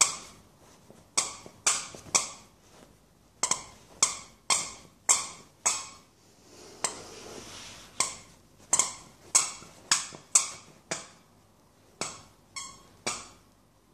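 Bernese mountain dog puppy chomping on a rubber squeaky lips toy, making a long run of short squeaks, roughly two a second, with a pause of about two seconds midway.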